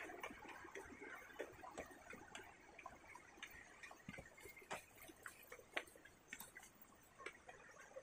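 Faint footsteps on stone trail steps: scattered, irregular light taps and scuffs.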